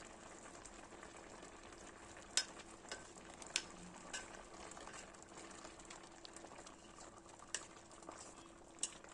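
White mulberry jam simmering on low heat in a stainless steel pot: a faint, steady bubbling sizzle of the sugar syrup, with a few sharp clicks and pops scattered through.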